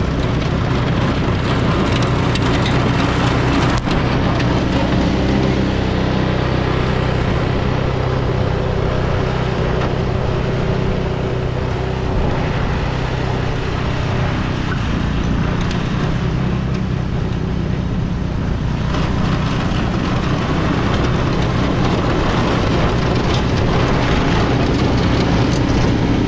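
A vehicle engine running steadily, under heavy wind noise.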